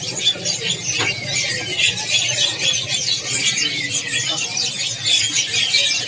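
Many caged songbirds chirping and trilling at once, a dense, unbroken chorus of short high notes, with one sharp click about a second in.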